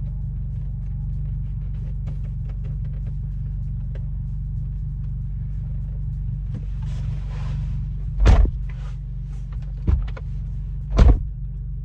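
Steady low rumble of a car running while stationary. Over it come rustling and handling noises, with two loud thumps about eight and eleven seconds in, as trim and wiring are worked on inside the cabin.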